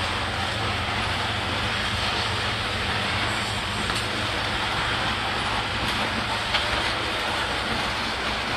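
Freight train's hopper cars rolling past: a steady rumble and rattle of steel wheels on rail, with one short clank about two-thirds of the way in.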